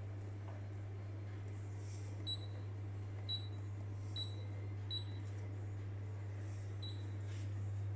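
Electronic beeps from a glass-top hob's touch controls as its settings are pressed: five short beeps at one high pitch, over a steady low hum.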